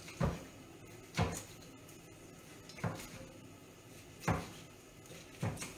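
Small kitchen knife slicing an artichoke thinly on a wooden cutting board: five short, sharp knocks of the blade against the board, spaced about a second or more apart.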